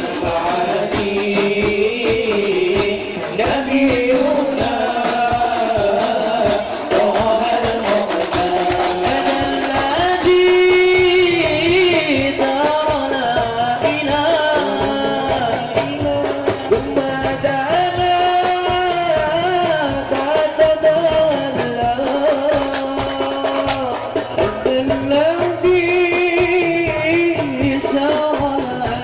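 Young men's voices singing Islamic devotional songs (sholawat) into microphones, solo lines passed between singers, over steady hand-drum and tambourine percussion.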